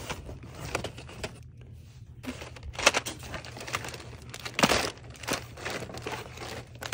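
Packaged school supplies (plastic-wrapped pen packs and notebooks) being shuffled and pushed aside by hand on a store shelf: irregular crinkling and rustling, with louder rustles about three and four and a half seconds in.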